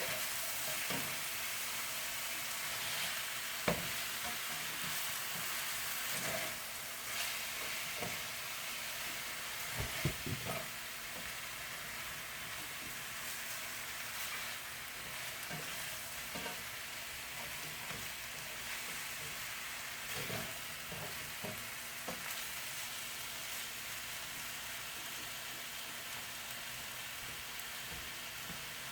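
Chicken wings sizzling steadily as they fry in a pan, with a few sharp knocks about 4 and 10 seconds in.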